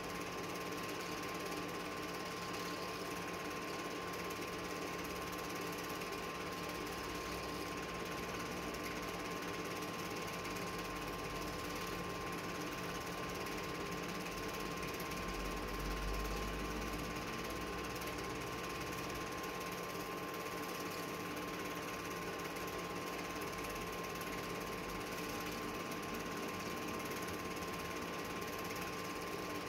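Film projector running: a steady, rapid mechanical clatter with a constant hum.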